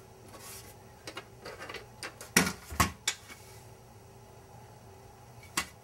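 A GunVault NanoVault 300 portable gun safe of 18-gauge steel being handled and its lid opened: a few sharp metallic clicks and knocks about two to three seconds in, and one more click near the end.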